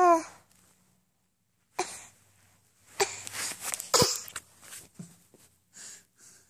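A short squeal-like voice sound, then breathy puffs and rubbing right against the phone's microphone as the phone is handled close up, with a sharp knock about four seconds in.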